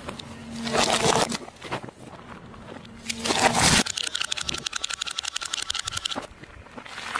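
Die-cast toy cars crunching and scraping under a car tyre in two loud bouts. About four seconds in, a wind-up toy's clockwork runs with rapid, even clicking for about two seconds.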